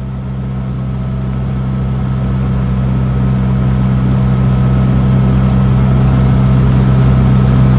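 Amphicar amphibious car's four-cylinder engine running steadily, a low even drone that grows gradually louder.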